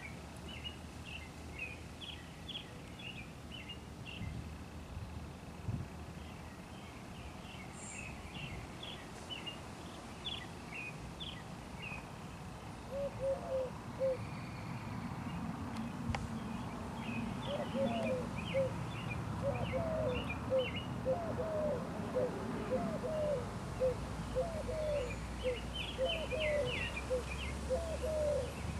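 Birds chirping in short bursts. From about halfway through, a lower-pitched call joins, repeated over and over.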